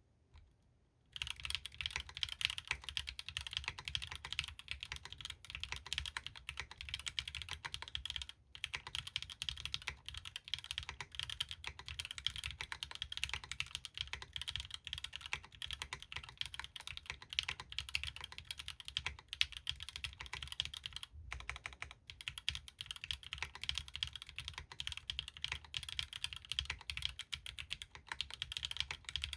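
Fast, continuous typing on a custom mechanical keyboard: a Bahm Studio Droplet with stock Gateron L'Orange linear switches, Linworks Greige keycaps and a carbon fiber plate. The typing starts about a second in and has two short breaks.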